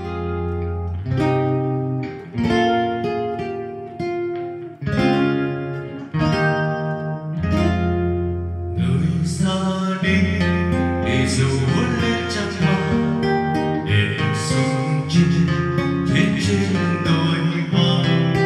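Music: plucked guitar notes over a bass line. About nine seconds in, the arrangement fills out with more instruments and brighter high end.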